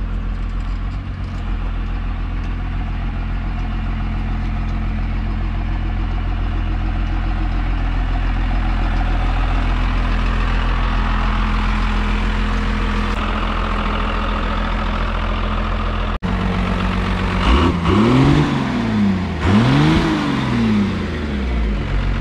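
The 12-valve Cummins diesel in a lifted Ford Excursion runs steadily as the truck moves. After a sudden cut, it is revved up and back down twice near the end.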